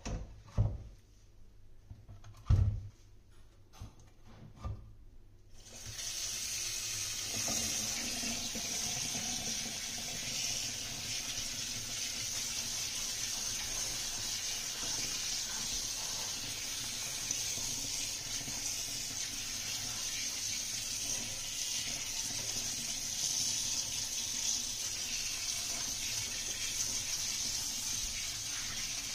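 A few sharp knocks as circuit boards are set down on a plastic mat in a basin. Then, from about six seconds in, a steady hiss of water sprayed from a handheld sprayer onto the motherboards, rinsing them.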